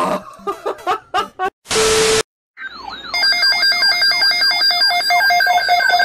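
Short bits of voices and a brief burst of noise. After a moment's silence, a weather radio's electronic alert sounds from about three seconds in: repeated falling sweeps over steady high beeping tones.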